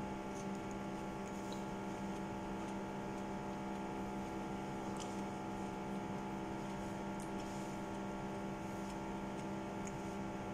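A steady electrical hum made of several fixed tones, with a few faint soft clicks of chewing.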